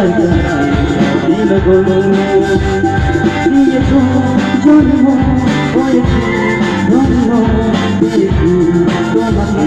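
A Bengali song sung over instrumental accompaniment with a steady beat.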